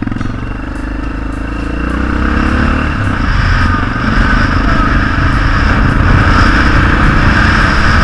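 Yamaha XT600 single-cylinder motorcycle engine pulling away and accelerating, its note rising over the first few seconds. Then wind rushes over the helmet microphone, growing louder with speed.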